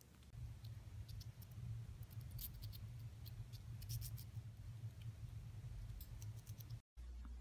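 A chipmunk handling and nibbling food on a wire-mesh floor: faint, scattered clicks and scratches over a steady low hum.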